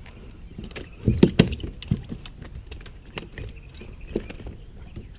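Knocks and clattering against a plastic fishing kayak's hull and deck while a freshly caught crappie is landed and handled, loudest in a cluster of knocks about a second in, with scattered clicks after.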